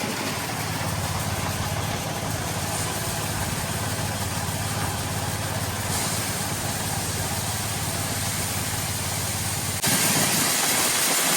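Engine-driven grain loading equipment running steadily with a low hum, conveying corn from a wagon into the grain dryer. The sound jumps abruptly louder a little before the end.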